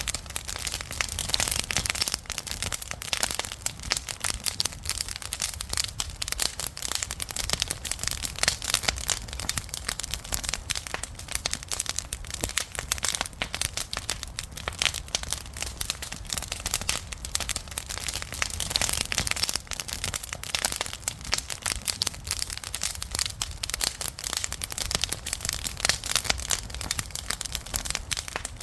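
Wood campfire crackling, with a dense, continuous run of sharp snaps and pops over a low steady rumble.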